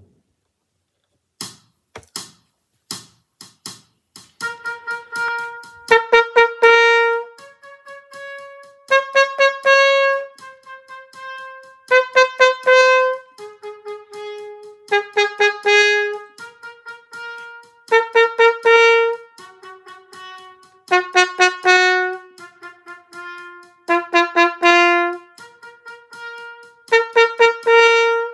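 Trumpet echo exercise. Four count-in clicks, then short quieter phrases from the play-along track over a steady click beat, each answered at once by the same notes played louder on a Yamaha 6345HG trumpet, eight call-and-answer pairs in all, about every three seconds.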